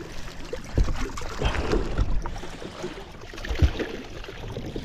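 Water splashing and lapping around a fishing boat as a hooked smallmouth bass is played close by, with two short low knocks, about a second in and again about three and a half seconds in.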